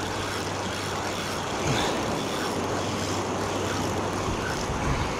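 Breaking surf and wind noise, with a low steady hum that fades out about four seconds in.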